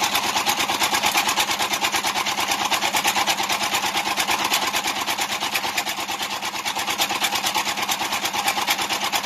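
Small stationary engine on the boat deck running steadily with a fast, even clatter.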